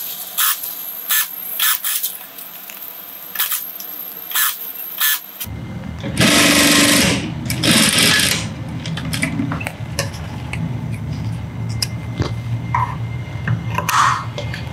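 Sewing machine stitching bias binding onto quilted fabric. It starts with a few sharp clicks, runs in two short loud bursts, then runs steadily. A pair of scissors snips near the end.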